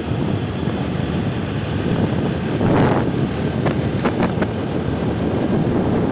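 A vehicle running along a road with wind buffeting the microphone, a steady low rumble, and a few short knocks about three to four seconds in.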